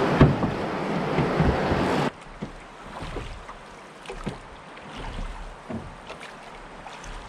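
Loud rushing of river rapids with a few knocks as a man climbs into a drift boat; about two seconds in it cuts to a much quieter wash of water around the drifting boat, broken by scattered light knocks and bumps on the hull.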